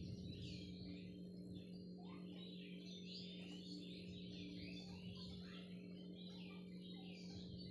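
Faint birds chirping, many short overlapping calls throughout, over a steady low hum.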